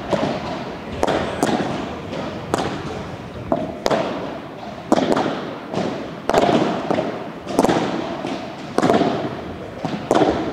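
Padel ball struck back and forth with solid rackets and bouncing on the court, sharp pops about once a second, each ringing on in the echo of a large hall.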